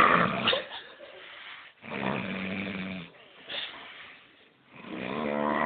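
A man snoring heavily in separate snores about two to three seconds apart: one dying away at the start, a second lasting about a second, and a buzzing third beginning near the end.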